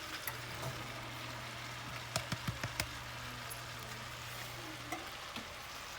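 Cabbage slaw frying in a pan, a faint steady sizzle with a low hum underneath. A quick run of about five sharp clicks comes a couple of seconds in.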